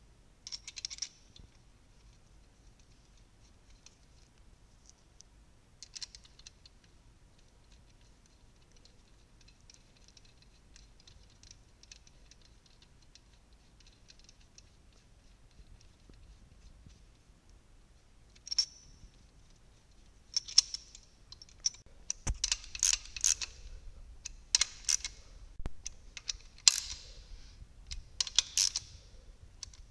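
Wrench and bolts working on the main bearing cap bolts of a BMW M54 engine: scattered light metallic clicks and rattles, then a quick series of sharp clicks in the last ten seconds.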